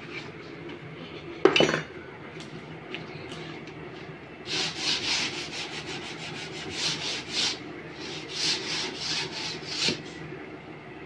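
Hand rubbing and scraping along the edge of a melamine-faced particle board door as an edge-banding strip is worked on, in runs of quick strokes. A single sharp knock comes about a second and a half in.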